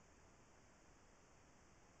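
Near silence: faint steady electronic hiss.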